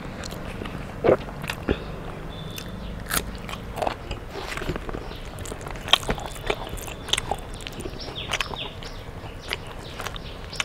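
Close-miked chewing and crunching of mouthfuls of rice and crunchy fried food eaten by hand. Irregular crunchy bites and wet mouth clicks come every fraction of a second.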